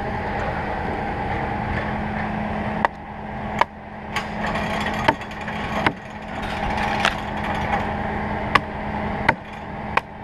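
Axe chopping wood: sharp single strikes, often in pairs, beginning about three seconds in. An engine runs steadily underneath.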